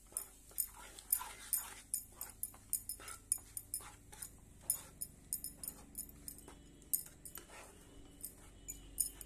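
Wooden spatula stirring and scraping a wet semolina, coconut and milk mixture around a nonstick kadai: quick, irregular scrapes a few times a second.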